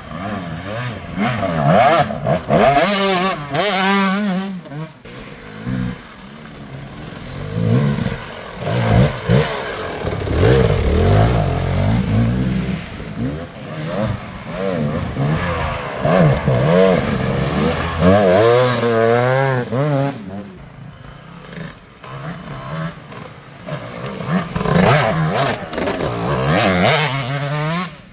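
Enduro dirt bike engines revving hard and falling back again and again, with short quieter spells between the bursts of throttle.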